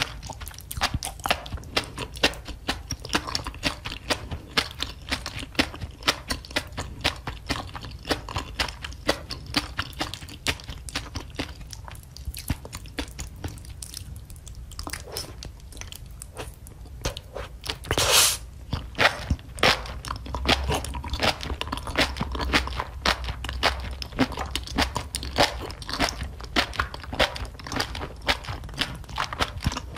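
Close-miked chewing and crunching of enoki mushrooms in a thick spicy sauce: wet mouth clicks and crunches come thick and fast, thin out for a few seconds just before the middle, and one louder, longer burst comes about eighteen seconds in.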